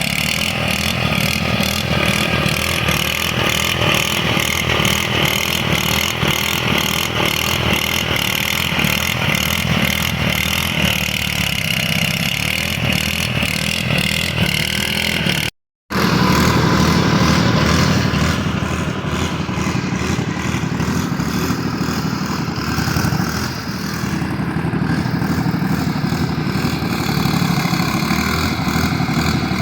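Small Speedex garden tractor engine running steadily under load while working the ground, with a quick regular clatter through the first half. About halfway through the sound cuts out for a moment and then resumes with a steadier engine note.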